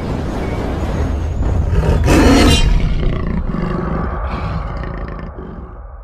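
Intro sound effect: a deep rumbling boom that swells into a roar about two seconds in, then slowly fades away.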